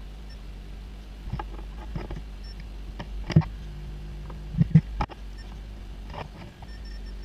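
Scattered light clicks and taps, the loudest about three and a half and just under five seconds in, over a steady low hum.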